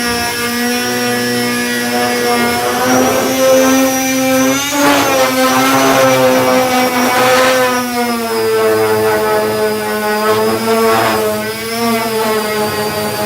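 Power sander fitted with a 240-grit disc, running on body filler. It is a steady motor whine whose pitch sags and recovers several times, with scratchy rasping bursts about five and seven seconds in and again near eleven seconds.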